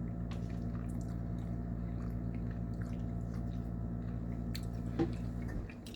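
Someone chewing a mouthful of chicken spaghetti, with a few faint wet mouth clicks, over a steady low hum that drops away just before the end.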